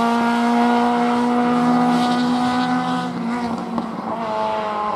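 A hatchback race car's engine at high revs, the pitch held nearly steady and sagging slightly through a corner; about three and a half seconds in the revs drop off, then climb again as the car pulls away.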